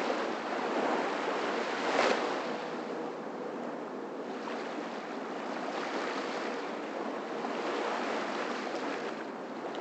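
Small waves washing onto a sandy shoreline, with wind on the microphone; the wash swells and eases, loudest about two seconds in.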